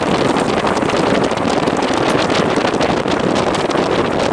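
A vehicle driving along a dirt road, with wind rushing over the microphone: a loud, steady rumble of air and road noise laced with many small crackles.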